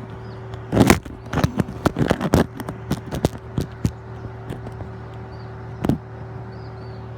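A steady engine hum, overlaid by a quick series of sharp cracks and knocks in the first few seconds, the loudest about a second in, and one more knock near the end.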